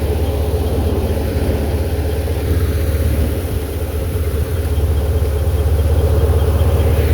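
Tractor engine running steadily with a deep, even hum, easing slightly for a moment about four seconds in.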